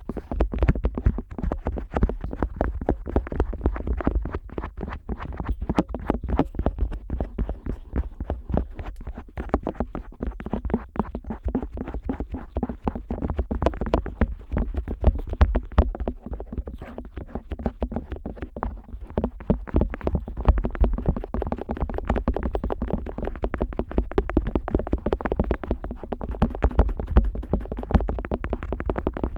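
Otoscope rubbing, tapping and pressing on the rubber outer ear of a KU100 dummy-head microphone, right at the ear's microphone: a dense, unbroken run of muffled thuds, scrapes and rustles.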